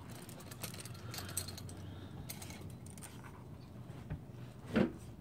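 Faint handling sounds of a GY6 cylinder being worked down over its piston by gloved hands: soft rustles and small metal clicks, with a soft knock about four seconds in and a short louder one near the end.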